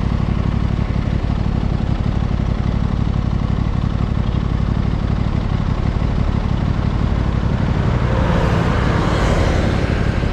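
Aprilia RS 660's parallel-twin engine and exhaust running steadily, with added noise building from about eight seconds in.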